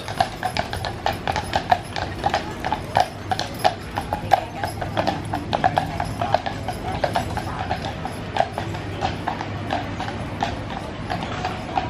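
Hooves of a pair of draft horses clip-clopping on pavement at a walk as they pull a horse-drawn omnibus past, several sharp strikes a second.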